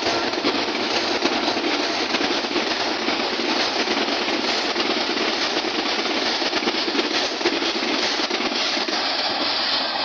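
Pakistan Railways passenger coaches passing at high speed: a loud, steady rumble and rattle of wheels running over the rails.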